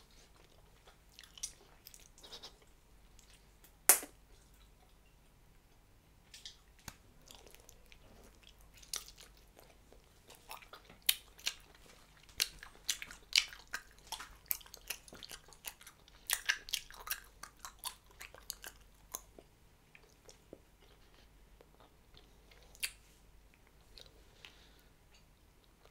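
Mouth chewing a wad of Hubba Bubba bubble gum: irregular sticky clicks and smacks, sparse at first with one sharp snap about four seconds in, coming thick and fast from about ten to nineteen seconds in, then trailing off to a few.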